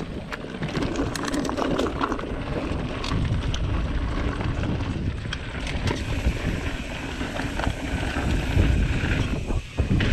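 Mountain bike riding fast down a dirt and gravel trail: tyres rolling over loose ground, with frequent clicks and rattles from the bike over bumps, and heavy wind buffeting on the microphone.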